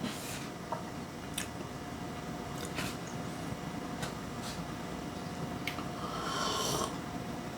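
A few light clicks, then about six seconds in a short slurping sip of espresso, over a faint steady hum in a small room.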